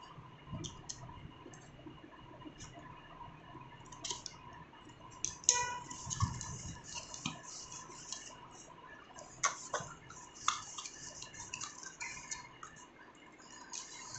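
Scissors snipping at a cardboard shipping box, followed by cardboard rustling and scraping as the flaps are pulled open and the inner box is slid out, with scattered clicks and knocks. The scraping gets busier about five seconds in.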